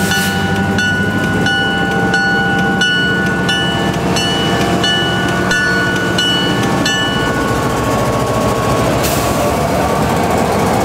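Diesel freight locomotives running as they roll slowly up to and past the platform, with a bell dinging about three times every two seconds that stops about seven seconds in. As the lead unit passes close by, a hiss and a rising whine join the engine sound.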